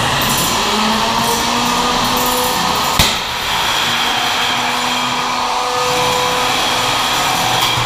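Steady electric whirring of 1 lb combat robots' motors, with held tones that shift in pitch as they speed up and slow down, and one sharp hit about three seconds in.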